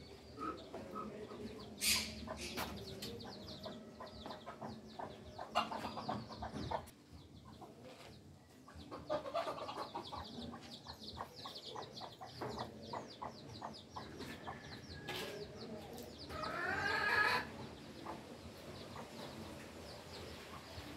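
Birds calling in runs of rapid short notes, with one louder call late on.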